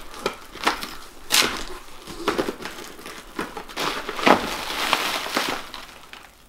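Cardboard box flaps being pulled open, then a plastic-wrapped headlight lifted out, with sharp cardboard cracks and crinkling plastic. The crinkling is loudest about four seconds in.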